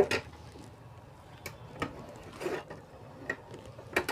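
Scattered light clicks and taps, about half a dozen at irregular intervals, the first the loudest, as the front panel of a Sony Xplod car stereo is worked loose and taken off.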